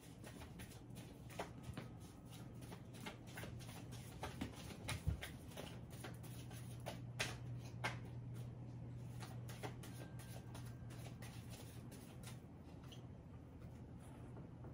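A deck of cards being shuffled by hand: soft, irregular flicks and clicks, with a faint steady low hum underneath.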